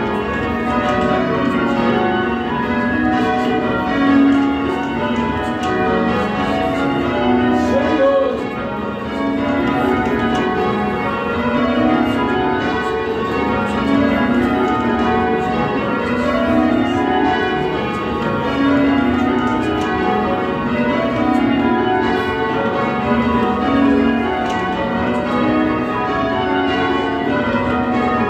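Cathedral church bells, cast by Whitechapel, rung full-circle in change ringing: an unbroken stream of strikes, the bells sounding one after another in runs that step down in pitch and keep shifting order.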